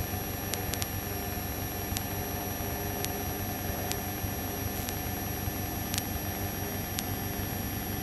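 Light aircraft's piston engine droning steadily in cruise, heard from inside the cockpit through the headset intercom, with a thin high whine and a few faint clicks.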